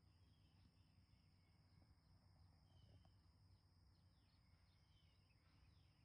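Near silence: faint outdoor ambience, with a steady high-pitched insect drone, scattered short bird chirps and a low background rumble.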